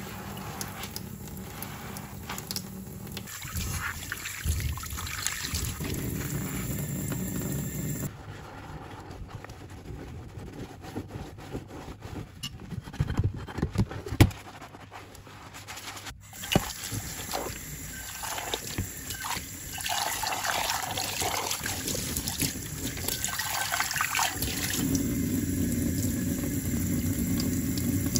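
A foamy scrubber sponge scrubbing a soapy stainless-steel saucepan in a metal sink, with squishing suds and splashing water, and a sharp knock about halfway through. Near the end a tap runs steadily as the pan is rinsed.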